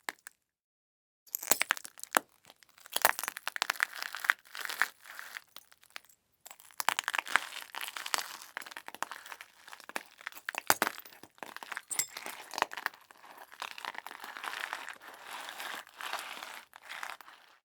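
Glass cracking and crunching: a long, dense run of small crackles and clinks rather than one smash, in two separate takes with a short gap about six seconds in.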